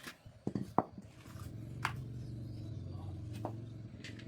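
A few sharp metal knocks and clicks of tools being handled. About a second in, an engine starts running with a steady, even hum.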